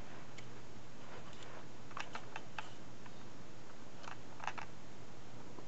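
Light plastic clicks and taps from fingers handling a plastic toy train locomotive: a quick run of clicks about two seconds in and a few more a couple of seconds later, over a steady low hum and hiss.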